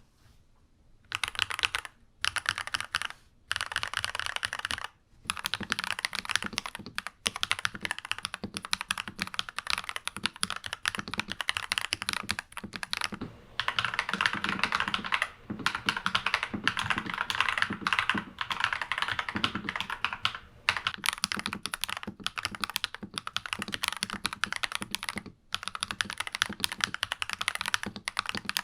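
Fast typing on a NuPhy Halo96 mechanical keyboard fitted with lubed Akko Vintage White linear switches: a dense run of keystroke clacks that begins about a second in and pauses briefly now and then.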